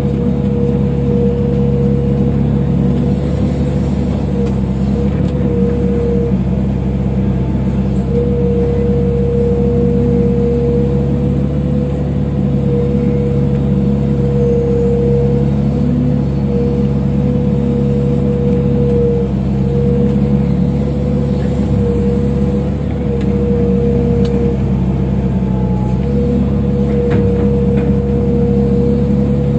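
Excavator's diesel engine running steadily during soil loading, a constant drone with a steady whine over it.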